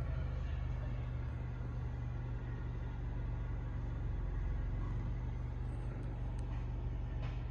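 Steady low rumble of a 2016 Mercedes-Benz GLC 300's 2.0-litre turbocharged four-cylinder idling, heard from inside the cabin. There is one faint click near the end.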